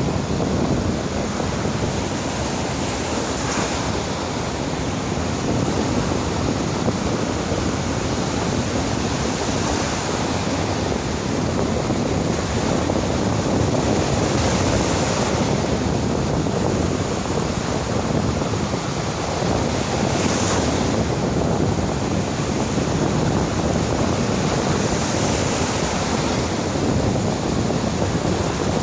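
Heavy surf: large waves breaking on the shore in a steady roar that swells every few seconds as each wave breaks, with wind buffeting the microphone.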